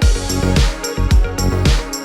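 Background music: an upbeat electronic track with a steady drum beat and a deep kick drum.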